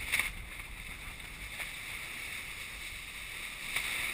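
Steady rush of wind and water around a Dufour 45e sailing yacht under way through waves. A few sharp knocks cut through, the loudest about a quarter of a second in.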